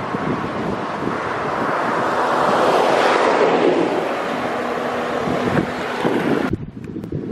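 Wind buffeting the microphone, swelling to a peak about three seconds in and then easing, with a faint engine hum underneath. The sound changes abruptly near the end.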